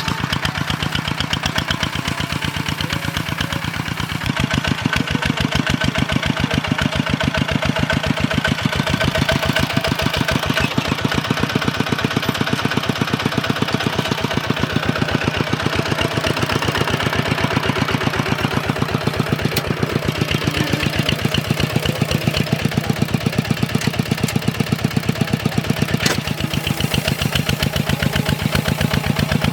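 Two-wheel walking tractor's single-cylinder diesel engine running steadily with a fast, even chugging beat, growing a little louder about four seconds in.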